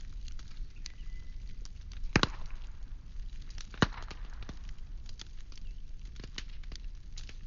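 Firewood burning with a low steady rumble and scattered crackles, with two louder pops, about two seconds in and again near four seconds.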